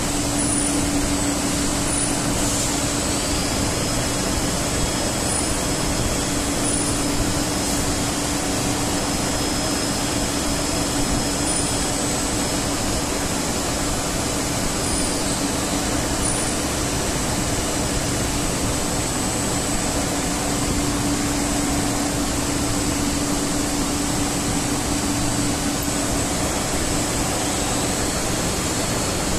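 Friction stir welding machine running steadily while its spinning tool travels along the seam of an aluminium liquid cold plate: an even machine noise with a constant low hum and a thin high whine.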